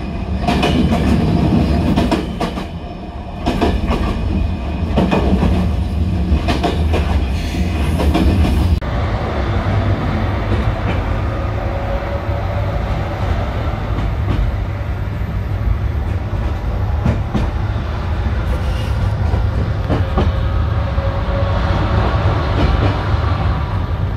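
Passenger train running on the rails, heard from inside the carriage: a low rumble with wheels clicking over the track. About nine seconds in, the sound changes abruptly to a steadier rumble and hiss.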